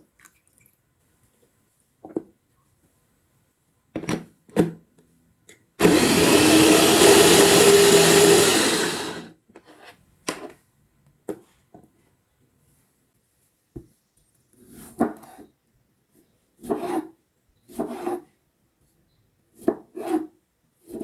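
An electric kitchen blender running in one burst of about three seconds, starting abruptly and tapering off, with a steady motor hum under the churning. Scattered knocks and clatter of kitchen utensils come before and after it.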